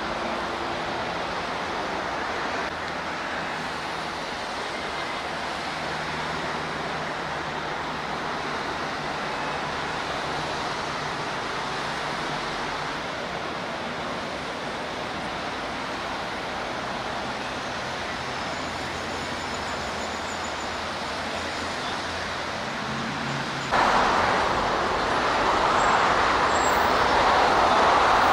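Steady highway traffic noise, a constant wash of passing vehicles and tyres; it jumps abruptly louder near the end.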